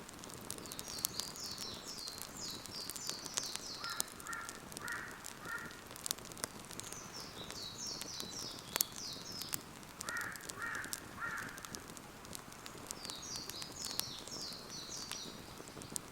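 Birds singing outdoors: phrases of quick high notes come about every six seconds, with a lower group of two or three notes between them, over the scattered sharp crackles of a wood fire.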